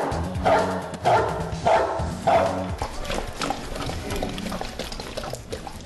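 Dog barking repeatedly, about two barks a second, over background music; the barking stops about two and a half seconds in.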